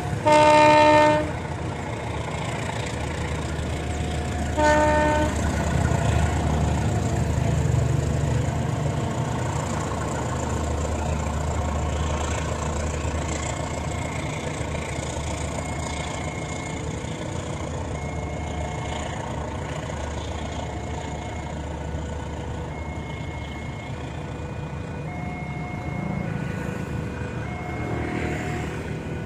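Train horn blowing a loud blast of about a second, then a shorter second blast about four seconds later, while a long passenger train rolls past; the rest is the steady low rumble of the coaches running by on the track, easing slowly toward the end.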